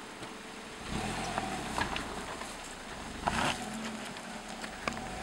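Car engine picking up revs about a second in as the car is eased over rocks, with scattered sharp clicks and a short crunching burst about three seconds in.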